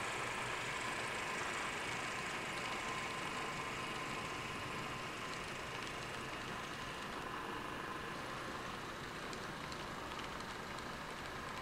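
N scale model coal train rolling along the track: a steady mechanical hum that slowly gets a little quieter, with a few faint clicks in the second half.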